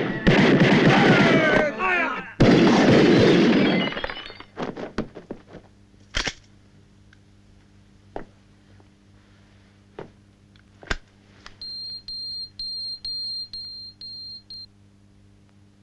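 Film soundtrack: a loud, dense burst of rapid gunfire mixed with voices, dying out about four seconds in. A few separate sharp shots or impacts follow, then a high electronic beep repeats about five times near the end.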